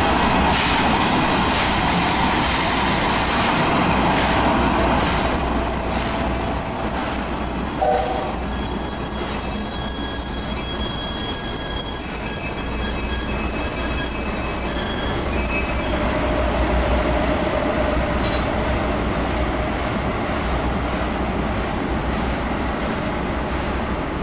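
The SL Hitoyoshi steam-hauled train running on the rails. From about five seconds in, a long, steady, high-pitched wheel squeal lasts for around twelve seconds.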